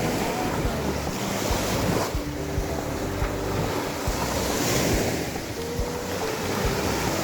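Sea waves and wind blowing on the microphone, a steady rushing sound.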